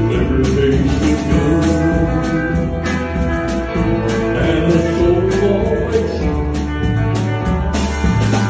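Live band music: an electric guitar playing over bass and a steady drum beat.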